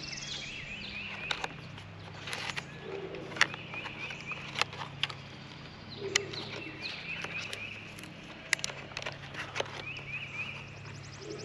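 Birds calling outdoors, a short phrase of quick repeated chirps coming back every few seconds. Sharp, brief clicks and taps are scattered through it, over a low steady hum.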